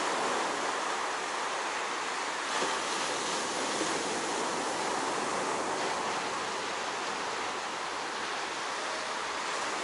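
Steady rushing noise of waves and wind, with no distinct events.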